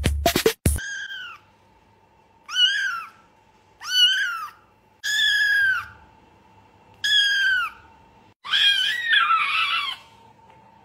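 Kitten meowing: a series of about six high-pitched meows with short gaps, each rising then falling in pitch. The last one is longer and rougher.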